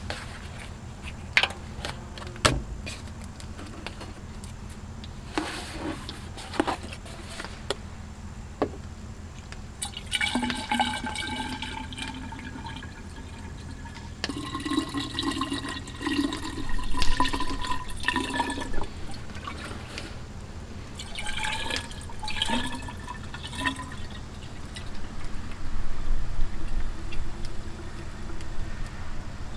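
Engine coolant being poured from a gallon jug into a low radiator, gurgling and glugging in three spells, the first about ten seconds in, with a few scattered knocks before it.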